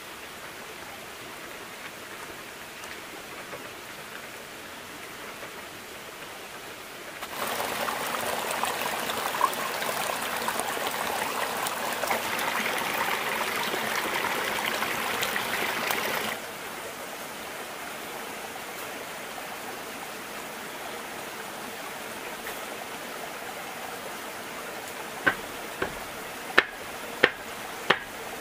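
Steady rushing of running water, much louder for about nine seconds in the middle, starting and stopping abruptly. Near the end, a series of sharp knocks about two-thirds of a second apart.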